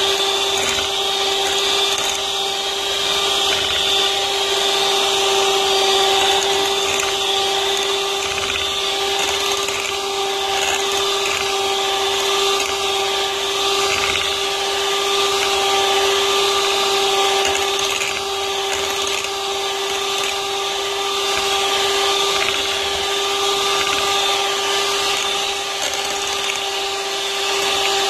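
Electric hand mixer running steadily with a constant motor whine, its beaters whipping cream in a glass bowl as the cream thickens and turns white.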